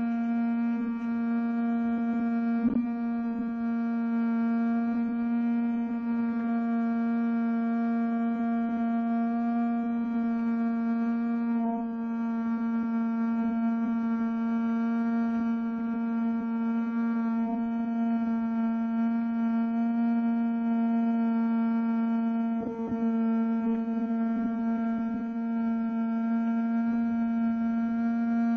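A small electric fan running close to the microphone: a loud, steady electric hum with a buzzing edge, and a couple of faint knocks at about 3 seconds and near 23 seconds.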